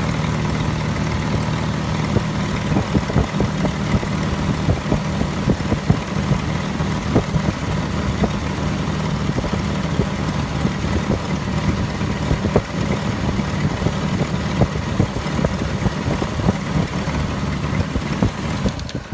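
1998 Jeep Grand Cherokee engine idling, with irregular sharp ticks throughout, then dying away at the very end as the engine stalls. The stall comes from fuel pressure falling to zero, which the owner suspects is a bad fuel pump.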